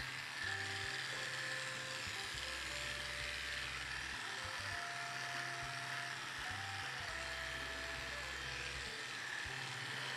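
Background music with a slow, shifting bass line and a simple melody, over the steady buzz of an electric dog-grooming clipper shaving matted fur down to the skin.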